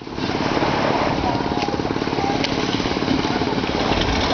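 A small engine running steadily with a fast, even putter.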